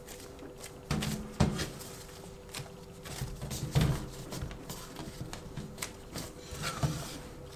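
Bread dough being handled by hand while cheese is worked into it: a few irregular dull thumps and knocks of dough and hands on a board, with small handling noises between them.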